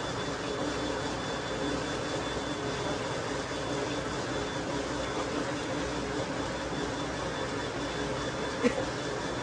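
A motor running steadily with a faint even hum, and one short knock near the end.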